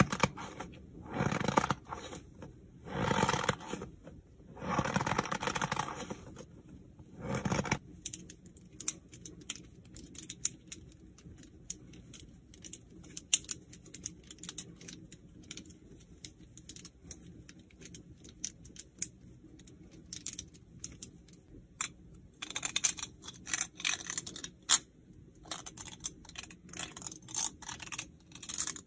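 Fidget toys being handled and played with. First comes a series of four rough, rustling noises about a second each, then light scattered clicks. Near the end there is a denser stretch of crackling and clicking.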